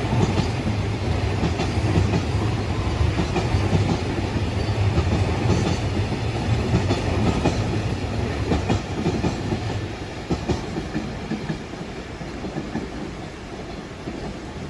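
Container freight train wagons rolling past, their wheels clattering over the rail joints. The clatter fades over the last few seconds as the end of the train goes by.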